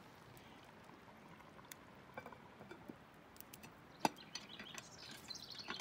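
Cast-iron Dutch oven lid, heaped with hot coals, being lowered onto the pot with a lid lifter: faint scraping and small ticks, then one sharp metal clink about four seconds in as the lid settles onto the rim.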